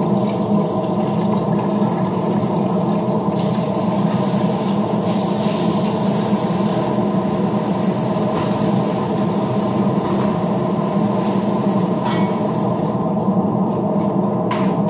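Steady low hum of a kitchen range-hood extractor fan, with water splashing into a pot at the start and a couple of light clicks near the end.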